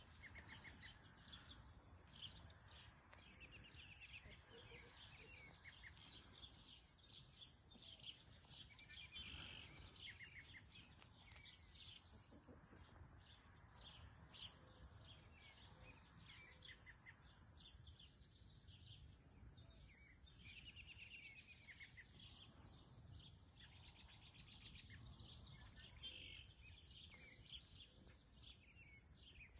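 Faint outdoor bird chirps and short quick trills, scattered throughout, over a steady high hiss.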